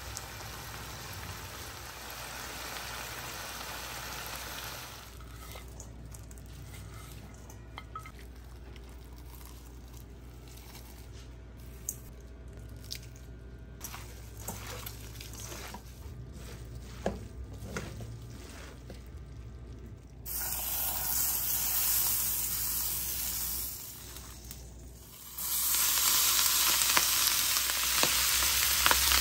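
Food frying and sizzling in a hot pan, coming in loud stretches near the start, around the twenty-second mark and again near the end. In between is a quieter stretch of stirring and mixing with scattered light knocks.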